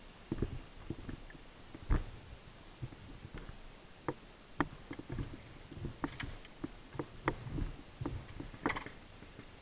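Footsteps along a hiking trail: irregular soft thuds and clicks, about one or two a second.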